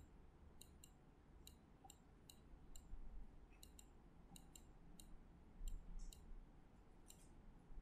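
Computer mouse clicking faintly and irregularly, about fifteen short sharp clicks, over a faint low hum.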